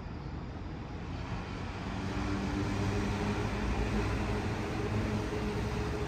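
Wind rumbling on the microphone, with a steady engine drone that comes in about two seconds in and grows louder.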